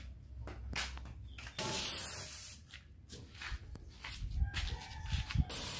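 Gravity-feed paint spray gun on a compressed-air hose hissing in two bursts: one about a second and a half in, lasting about a second, and another starting near the end.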